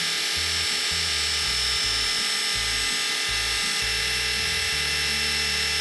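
A small electric motor running steadily with a high whine while pre-oiling a Chrysler 440 big-block: oil is being pumped up to the rockers and into the hydraulic lifters. Music plays underneath.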